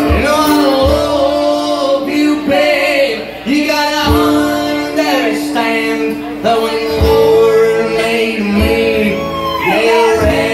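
Live acoustic country music: a man and a woman singing together over fiddle and acoustic guitar, with a few low thumps along the way.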